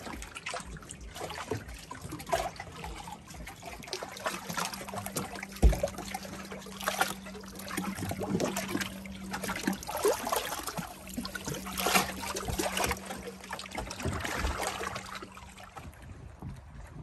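Small lake waves lapping and sloshing against shoreline rock and the side of a beached canoe, in a run of irregular splashes, with a single louder thump a little over five seconds in.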